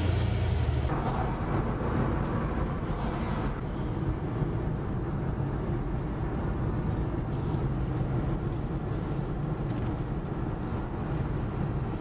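Road noise inside a moving car: the engine and tyres make a steady low hum, a little louder for the first few seconds.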